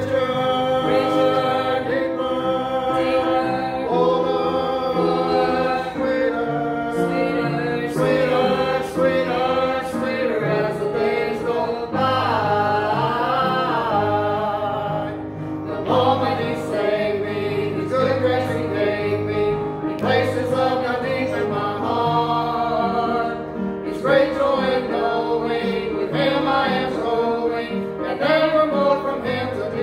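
A small mixed group, men's voices and a woman's, singing a gospel song together in harmony.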